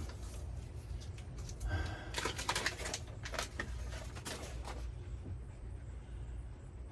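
Irregular light clicks and crinkling from handling sheets of sound deadening material, mostly in the middle of the stretch, over a steady low hum.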